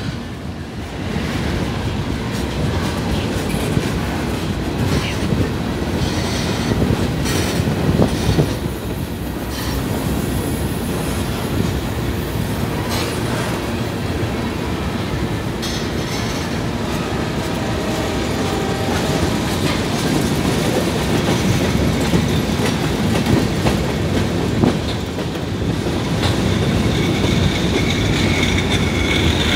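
Freight train of covered hopper cars rolling steadily past: a continuous low rumble of the wheels on the rails, with repeated clicks as the wheels pass over rail joints.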